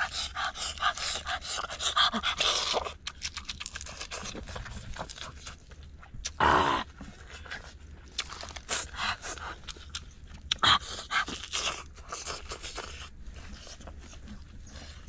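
Close-up eating sounds: a man chewing and crunching lettuce-wrapped grilled meat with chili sauce, with many wet clicks of chewing and heavy panting breaths from the hot chili. A short vocal groan comes about six and a half seconds in.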